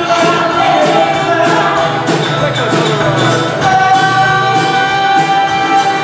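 Live rock band playing a cover song: a woman singing lead over two guitars and a steady beat. Over the second half she holds one long note.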